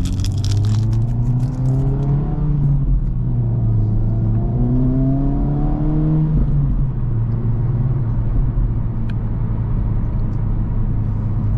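Acura Integra Type S's turbocharged four-cylinder engine pulling under acceleration. The engine note climbs, drops at a gear change about two and a half seconds in, climbs again, then falls away about six seconds in, leaving a steady drone of the car cruising.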